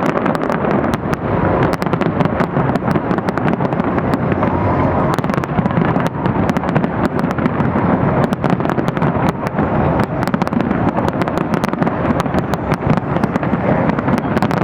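Fireworks display: a continuous barrage of many bangs and crackles, densely overlapping over a steady rumble.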